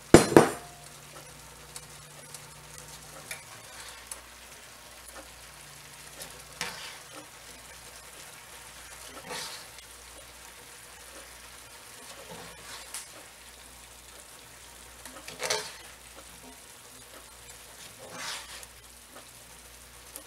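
Sliced steak, onions and bell peppers sizzling in a hot skillet, with a loud burst of sizzle as the peppers go in at the start. After that a faint steady sizzle, with the food stirred in the pan about every three seconds.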